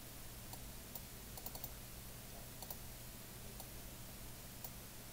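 Faint computer mouse clicks, about eight of them at irregular spacing, two of them close together, over a low steady hum.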